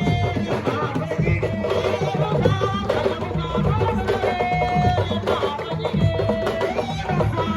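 Drum-led music with a melody over a steady percussion rhythm.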